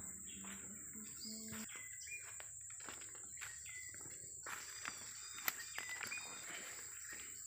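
Rainforest ambience: a steady high-pitched insect drone with short chirping bird calls, and footsteps crunching on dry leaf litter.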